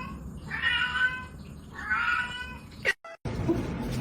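Cat meowing: two drawn-out meows about a second apart, then the sound cuts off abruptly about three seconds in.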